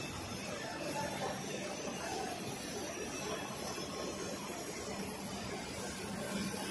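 Label slitting and rewinding machine running steadily, a printed web feeding through its rollers onto a rewind roll: an even machine noise with a faint low hum and hiss.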